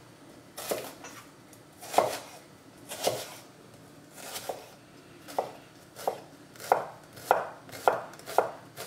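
Kitchen knife chopping a shallot on a bamboo cutting board: separate taps of the blade on the wood, a second or so apart at first, then quicker, about two a second, in the second half.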